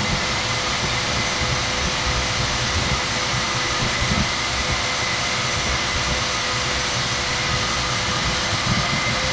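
Wet/dry shop vacuum running steadily with a constant whine, sucking dirt and debris out of the hole cut in the concrete slab.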